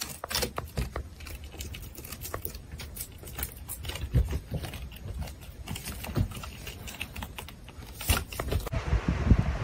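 A hamster's claws gripping and scrabbling on a textured wall as it climbs, heard as many quick, irregular clicks and scratches. Near the end the clicking gives way to a louder, steady rushing noise.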